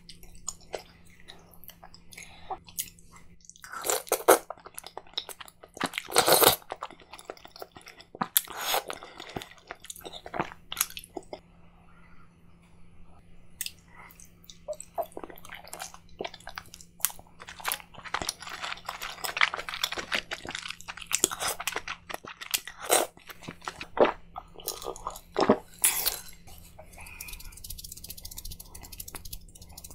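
Close-miked eating sounds: a person biting and chewing king crab meat coated in thick alfredo sauce, in irregular loud bursts of crunching and smacking with quieter stretches between. A faint steady low hum runs underneath.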